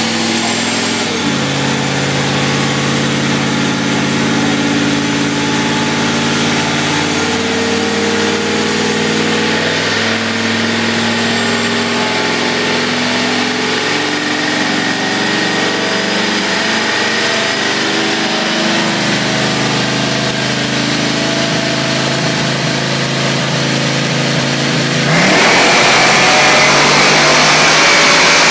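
ProCharger-supercharged Fox-body Ford Mustang engine running on a chassis dyno, held at steady speeds that shift up and down in steps. About 25 seconds in it goes to full throttle: a sudden, much louder roar with a high whine rising through it.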